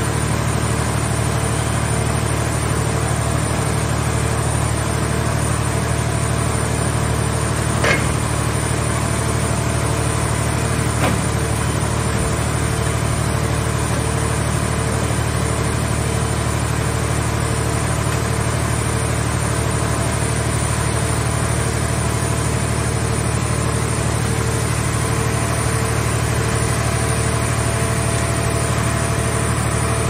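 Mobile car baler's engine and hydraulic system running steadily with a low hum and a regular pulsing tone, as its grapple crane handles scrap car bodies. Two sharp metal knocks come about eight and eleven seconds in.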